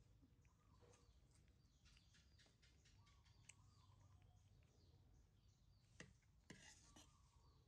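Near silence with faint high chirps and small clicks; about six seconds in, a metal spoon clicks and scrapes on a ceramic plate as food is scooped.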